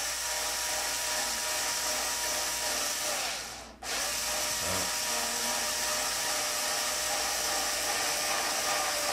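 Small cordless drill-driver motor running at a steady speed in two long runs, broken by a brief stop about four seconds in.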